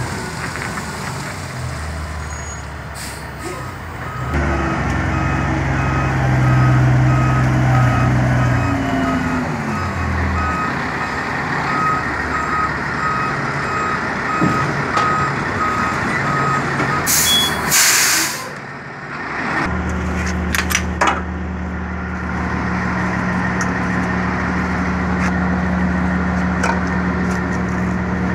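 Dump truck's diesel engine running as it backs up, its reversing alarm beeping steadily for over ten seconds while the engine revs up and settles. A sharp burst of air hiss follows as the air brakes are set, then the engine idles steadily.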